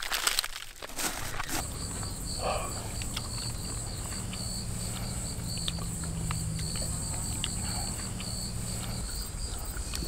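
Insects chirping steadily, a high continuous trill with a second, pulsing note below it, over a low steady hum.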